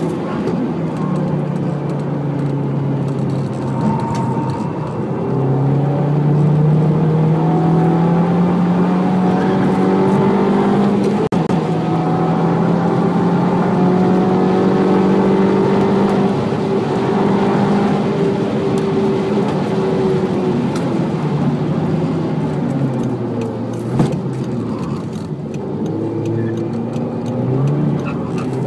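Audi TT Mk2's 2.0 TFSI turbocharged four-cylinder engine pulling hard on a track lap. The pitch rises slowly and holds high, falls around two-thirds of the way through as the car slows, then climbs again near the end. There is one short knock about 24 seconds in.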